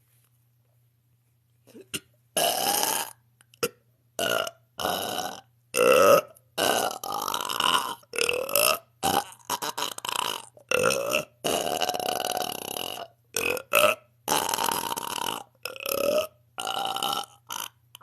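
A woman belching over and over: a rapid string of about fifteen short burps, one after another, starting about two seconds in. The one about six seconds in is the loudest.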